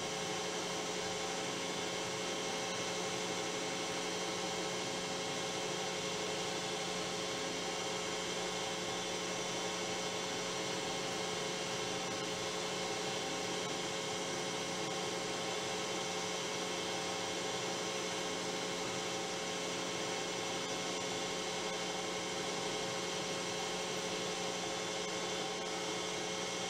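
Metal lathe running steadily, with a constant motor and gear hum while a small metal ring is turned.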